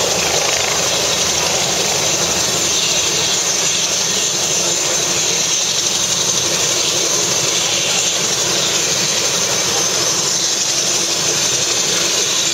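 Light single-engine turbine helicopter running on the pad at ground idle with its rotor turning: a steady high turbine whine over a constant rush of rotor and exhaust noise.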